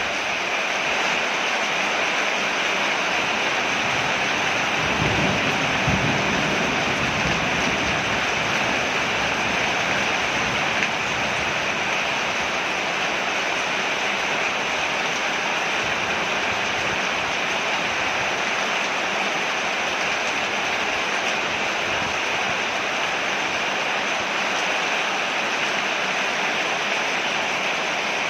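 Steady rain falling on a porch, an even hiss with no let-up. A brief low rumble comes through about five to seven seconds in.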